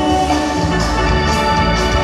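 Dance music playing loudly from a band: held melody notes over a bass line, with regular drum and cymbal strokes.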